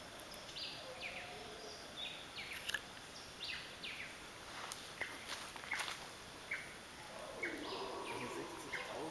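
A bird calling repeatedly in the rainforest: short, high notes that drop in pitch, given every half-second to a second over a steady background of forest sound.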